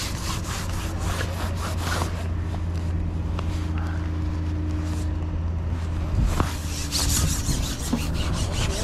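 A vehicle engine idling with a steady low hum that fades about six seconds in. Near the end come the rubbing and sharp clicks of a carbon match-fishing pole being shipped over a pole roller.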